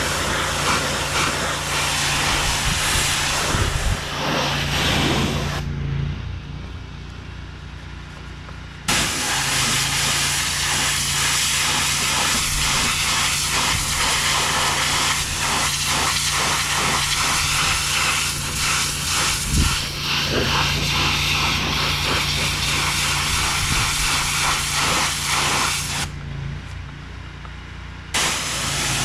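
HydroTek 30005VS hot-water pressure washer running steadily while its high-pressure spray hisses. The spray stops for about three seconds around six seconds in and for about two seconds near the end, leaving only the machine's steady engine hum.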